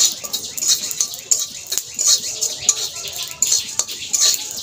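Coriander seeds being stirred and scraped around a hot metal kadai with a spatula as they dry-roast. The seeds rattle against the metal in quick strokes, about two to three a second.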